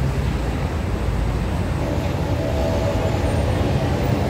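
Steady low rumble of vehicle engines and road traffic, with a faint steady whine joining about halfway through.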